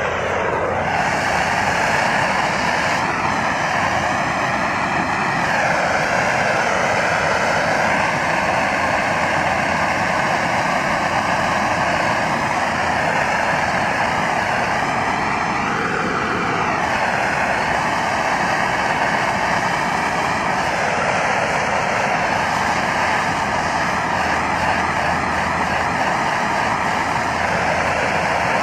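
Handheld gas soldering torch burning steadily, its flame heating a copper pipe to soldering temperature while solder is fed to the joint.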